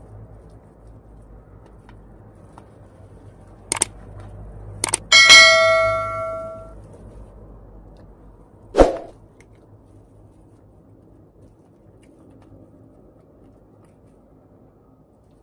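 A couple of light clicks, then a metal object struck with a clang that rings out for about a second and a half, and a single dull knock about three and a half seconds later.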